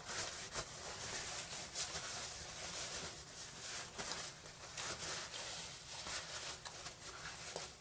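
A person chewing roast chicken: soft, irregular clicks.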